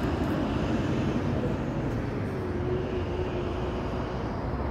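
Steady city road traffic: a low rumble of passing cars, with a faint engine hum held for a second or two in the middle.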